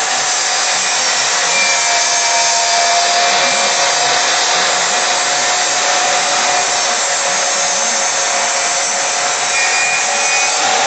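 Craftsman miter saw running steadily, its blade cutting through wooden boards.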